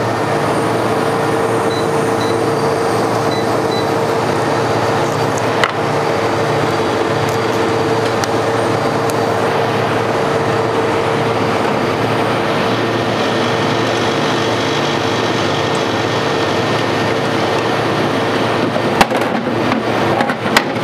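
Steady hum and whir of running commercial frozen-dessert machinery: a twin-bowl slush machine and a soft-serve ice cream machine freezing their mixes, with a constant hum tone over a low pulsing. A few light knocks near the end.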